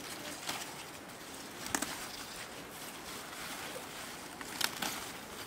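Leafy greens being picked by hand: a few short, sharp snaps and rustles as leaves and stems are broken off, two of them close together near the end, over a steady faint hiss.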